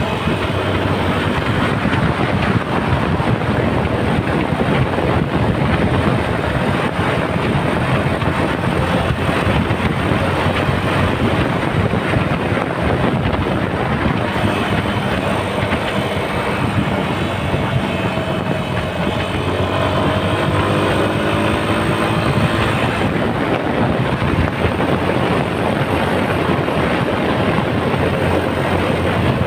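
Wind and road noise from riding on a Yamaha Serow 250 motorcycle, its single-cylinder four-stroke engine running beneath the rush of air, the engine note rising and falling now and then.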